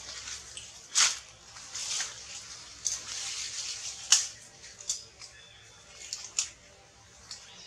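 Outdoor ambience: a faint high hiss with scattered sharp clicks, the loudest about one second and four seconds in.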